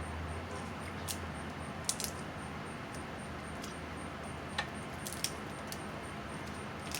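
Snow crab leg shells snapping and clicking as they are broken open by hand: about six sharp clicks in small clusters, over a low steady hum.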